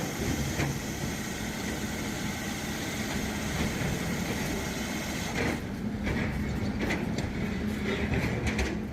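Heavy machinery engine running steadily with a low hum. About five and a half seconds in, the high hiss falls away and a few short clicks and knocks come through.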